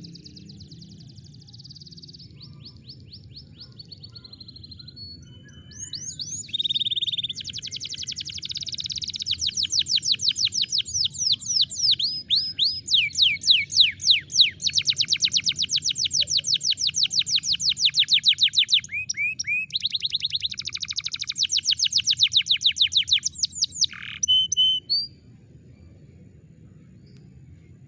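Domestic canary singing a long song of fast trills, each tour a rapid run of identical high notes, quieter at first and louder from about 6 s in, stopping about 25 s in.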